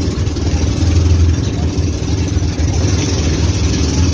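Pumpboat's engine running steadily as the boat cruises over open sea, a low even drone with no change in speed.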